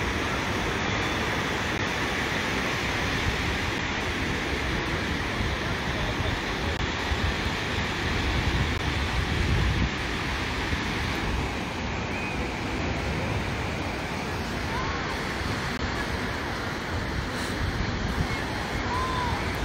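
Steady wash of ocean surf and wind, with gusts buffeting the microphone about eight to ten seconds in and a few faint short chirps near the end.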